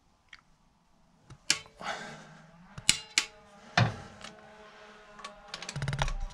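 A ratchet wrench and socket on cylinder head bolts: several sharp metal clinks as the socket is set on and the long handle is heaved round, then a fast run of ratchet clicks near the end as the handle is swung back. The bolts are being angle-tightened in their final stage.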